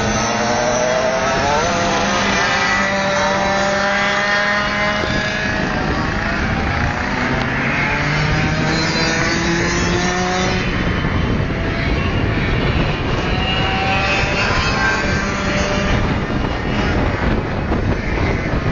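Several 125cc six-speed racing kart engines, two-stroke shifter engines, running hard at once as the karts lap the track. Their notes climb, drop and climb again as the karts accelerate, shift and slow for the corners.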